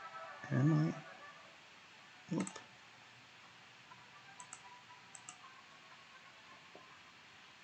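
Computer mouse and keyboard clicks: a brief hum-like vocal sound near the start, one sharper click about two seconds in, then a few soft keystrokes as an email address is typed.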